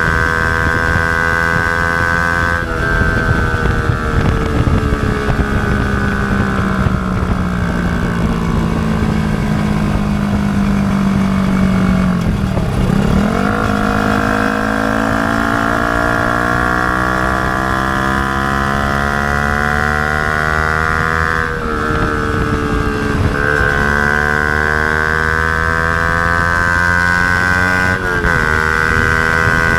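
Yamaha YZF-R125's 125 cc single-cylinder four-stroke running through a Mivv GP Pro slip-on exhaust with the dB killer fitted. The engine note drifts slowly lower, dips sharply and then climbs steadily for several seconds, with sudden drops in pitch near the middle and again near the end.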